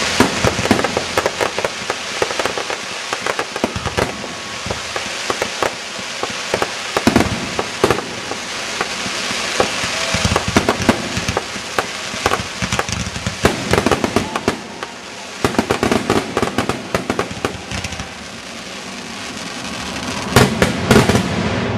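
Aerial fireworks going off in rapid succession, a dense run of bangs and sharp pops from bursting shells. The barrage eases about three-quarters through, then a cluster of loud bangs comes near the end.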